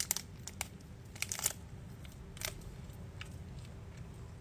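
Plastic food packaging being handled: a few crinkles and clicks in the first two and a half seconds, then only faint room hum.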